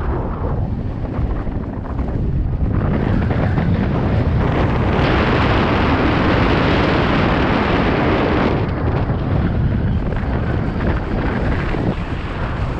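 Strong wind buffeting the microphone, a loud rushing noise that swells to its strongest about five seconds in and eases again some three seconds later.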